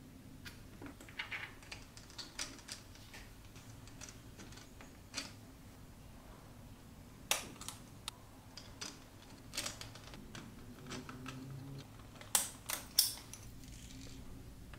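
Small 3D-printed plastic parts and hand tools being handled: scattered light clicks and taps, with a few sharper clicks near the end.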